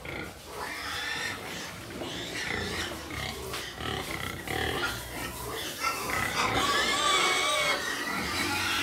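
A penful of domestic pigs calling over one another, with the calls louder and higher-pitched in the last few seconds.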